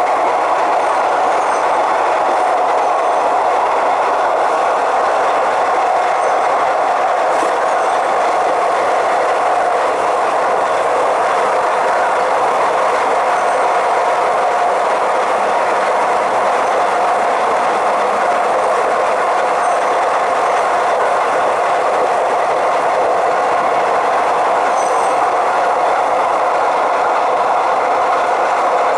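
Electric suburban commuter train running steadily at speed: continuous rail and running noise with a steady hum held at one pitch, barely changing throughout.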